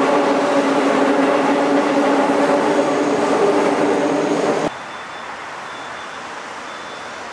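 Subway train passing overhead: a loud, steady rumble with a droning hum that stops abruptly about five seconds in, leaving a quieter steady rushing noise.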